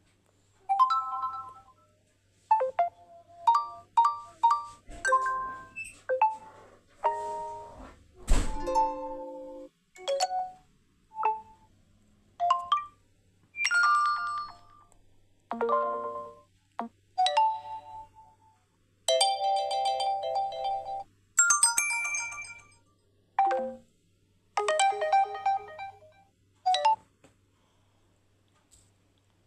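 A series of about twenty short electronic alert chimes and jingles from a realme Note 60 phone, played one after another with brief pauses between them; these are the phone's built-in notification tones.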